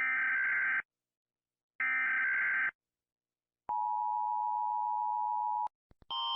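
Emergency Alert System tones: two buzzy data-header bursts of just under a second each, about a second apart, then a steady attention tone near 1 kHz held for about two seconds. A different multi-tone alarm starts right at the end.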